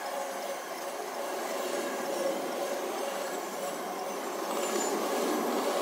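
Empty intermodal well cars of a freight train rolling past, giving a steady noise of steel wheels on rail with a faint ringing squeal mixed in.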